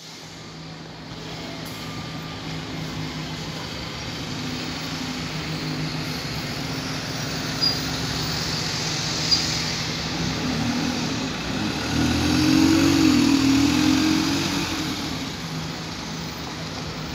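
Single-deck diesel buses running at a bus station, one engine growing louder and wavering in pitch about twelve seconds in as a bus pulls away, then easing off. Two short clicks come in the middle.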